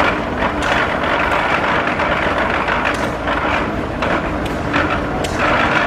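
1906 Frick steam traction engine running as it drives along, its exhaust chuffing from the stack roughly twice a second.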